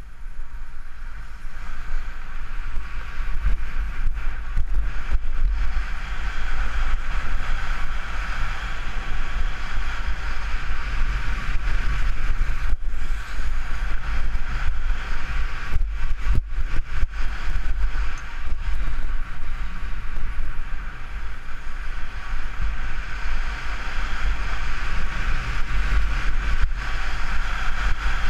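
Wind buffeting a helmet-mounted GoPro during a fast ski run, a steady low rumble, over the continuous hiss of skis carving packed snow. The sound cuts out briefly a few times midway.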